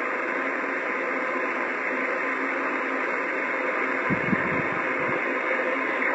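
Radio receiver hissing with steady static on a long-distance contact, the distant station too weak to copy. A couple of brief low thuds about four seconds in.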